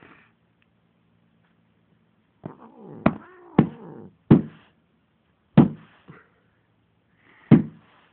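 A grumpy domestic cat growling and yowling at a kitten playing with its tail, a wavering cry that starts about two and a half seconds in, with several sharp thumps at uneven intervals through the rest of it.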